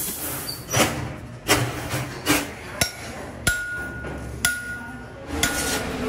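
Irregular sharp metallic knocks and clinks, about seven in all, several leaving a short ringing tone: steel wire mesh cage panels and metal parts being struck and handled.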